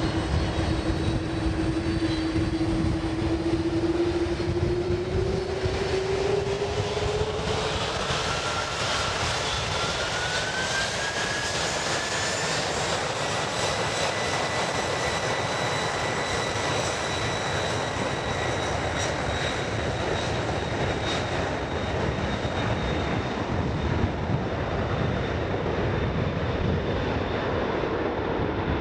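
Jet airliner engines running with a steady roar, and a whine that rises slowly in pitch through the first half before levelling off.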